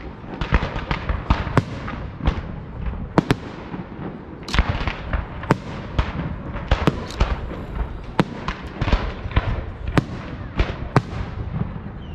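Aerial fireworks display: shells bursting in a rapid, irregular series of sharp bangs, several a second at times, with a haze of noise between the bangs.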